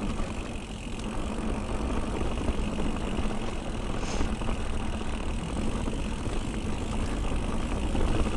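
Full-suspension mountain bike rolling fast down a dry dirt forest trail: a steady low rumble of the tyres over the ground.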